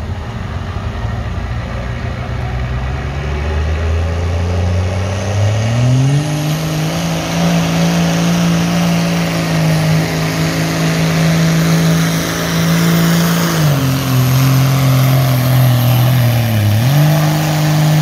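Dodge Ram pickup's turbocharged Cummins diesel pulling a weight-transfer sled under full load. The engine note climbs over the first few seconds and then holds, with a high turbo whistle over it. About three-quarters through the pitch drops, then it climbs back near the end.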